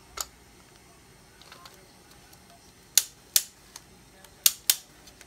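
Hard plastic clicks from a toy spinning-top launcher being handled and cranked: about six sharp clicks, one near the start and the rest bunched in the second half.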